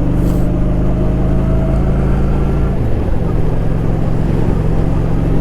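Honda Shadow Spirit cruiser's V-twin engine running steadily while the motorcycle is ridden. About three seconds in, the engine note briefly dips, then settles back into a steady run.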